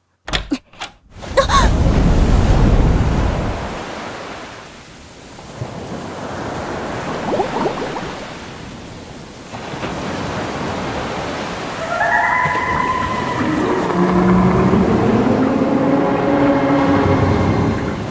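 Churning, rushing water sound effect, as of a body plunging and sinking underwater. It opens with a few sharp clicks and a loud surge a second or so in. Near the end, low tones falling in pitch sound over the water noise.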